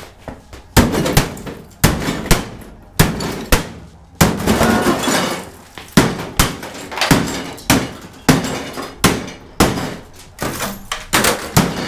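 A microwave oven being battered out of shape: a long, irregular series of heavy blows, roughly one or two a second, each with a short ring.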